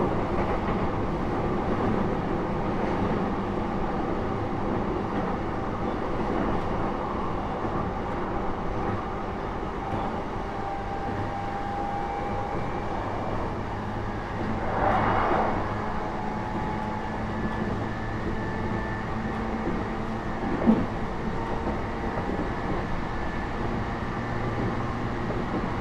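Interior running noise of a JR East E233 series 3000 electric train between stations: a steady rumble of wheels on rail with faint steady tones, over weak air conditioning. A brief louder rush comes about fifteen seconds in, and a single sharp click about twenty seconds in.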